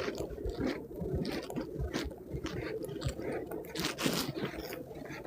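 Footsteps crunching and squishing through snow at a walking pace, about two steps a second.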